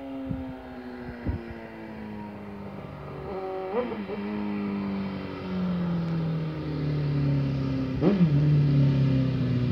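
Suzuki GSX-R750 inline-four engine running, its pitch sinking gradually with two short blips of revs about four and eight seconds in, getting louder toward the end. A few sharp cracks sound near the start.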